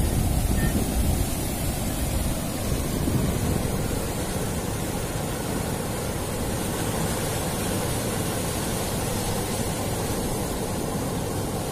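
Sea surf breaking and washing up the sand, a steady rushing noise, with wind rumbling on the microphone that is gustier in the first few seconds.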